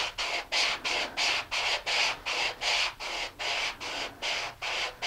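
Hand sanding: 150-grit sandpaper rubbed along the edge of a laser-cut plywood rocket fin in quick, even strokes, about four a second. The sanding takes off the bronze laser-cut edge until it is smooth.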